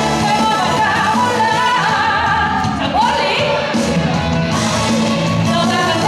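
A woman singing live into a microphone over backing music, her voice sliding up into a held note about three seconds in.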